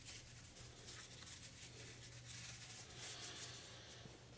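Faint rustling of a paper towel being folded and wrapped around a rod.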